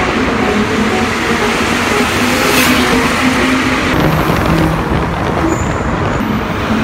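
Modified turbocharged cars driving through a road tunnel: steady, loud engine and tyre noise.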